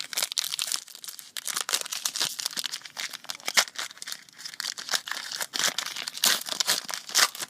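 Plastic wrapper of a basketball trading card pack being crinkled and torn open by hand, a dense run of irregular crackles throughout.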